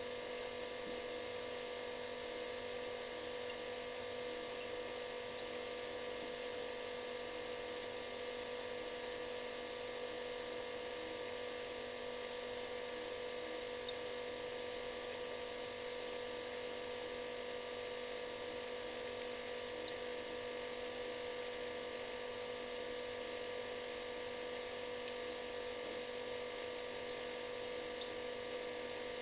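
Refrigerator running with a steady buzzing hum of several tones, the strongest a mid-pitched drone, over a light hiss.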